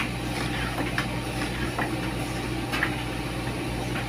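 Fujidenzo DRI-801WG front-load tumble dryer running: a steady low motor-and-fan hum with the drum turning. A few light clicks or knocks come through about one, two and three seconds in.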